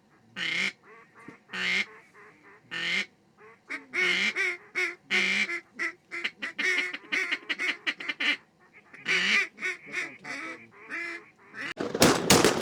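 Duck quacking, single quacks and rapid descending series, repeated through most of the stretch. Near the end a burst of loud, sharp cracks begins, typical of several shotguns firing together.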